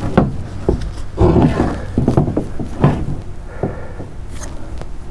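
A man grunting and straining in short efforts while trying to cut through a thick, old 50 amp shore power cable by hand, with a steady low wind rumble on the microphone.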